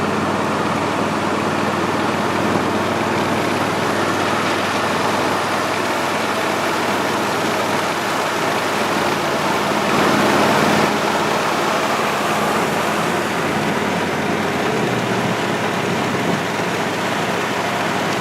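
Vehicle driving slowly, its engine running steadily under a wide rush of road and tyre noise. There is a brief louder rush near the middle, and the engine note steps down about three-quarters of the way through.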